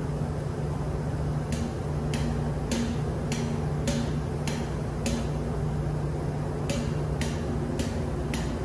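Steady low hum of running engine-room machinery, with a sharp regular ticking about twice a second.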